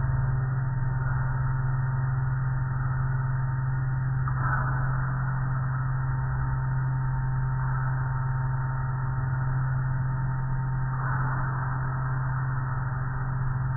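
Automatic car wash machinery running with a steady low hum, with a swishing sweep about four seconds in and again about eleven seconds in.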